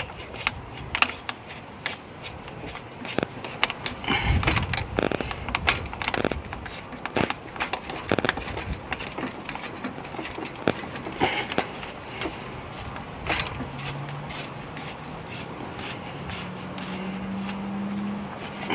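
Irregular scrapes and clicks of a braided radiator hose and its end fitting being worked by hand onto an aluminium thermostat housing. A low steady hum comes in near the end.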